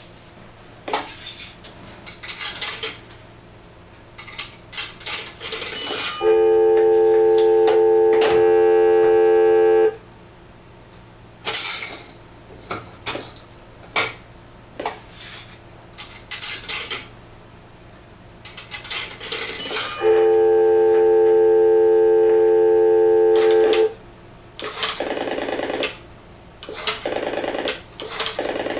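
Western Electric 236G three-slot payphone being worked: clicks and metallic rattles of its mechanism, broken twice by a steady electronic tone that lasts about four seconds each time.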